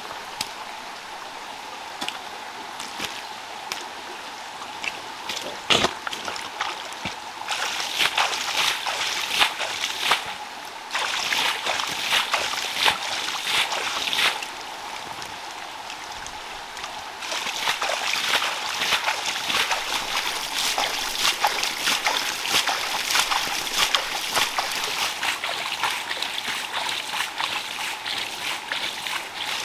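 Shallow muddy pool water trickling and splashing, with many small crackling splashes that come in louder stretches from about eight seconds in and again for most of the second half.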